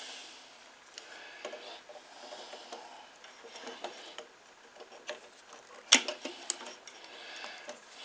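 Small clicks and handling noises from hands working a spring clamp off a lawn mower carburetor's fuel line, with a sharper click about six seconds in.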